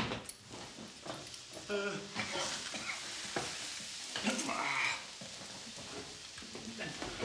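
Burnt cabbage rolls sizzling and hissing in a pan on the stove, with a few clatters.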